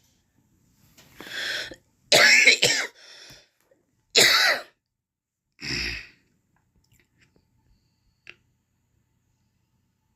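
A person coughing after a long vape hit: a run of harsh coughs between about one and six seconds in, the loudest about two and four seconds in.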